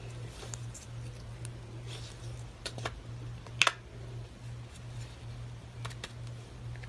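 A few small, sharp clicks and taps over a steady low electrical hum, with the loudest click a little past halfway.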